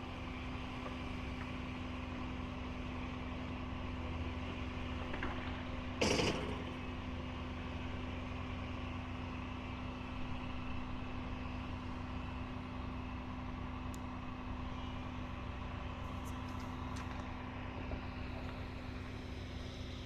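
Cat 345D L excavator's diesel engine running steadily with a constant hum, and one short loud rushing burst about six seconds in.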